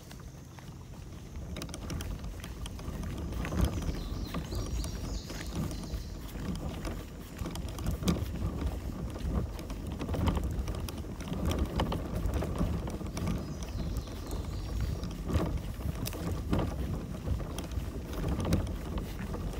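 Kayak being paddled: paddle strokes splashing into the water every second or two, over a low rumble.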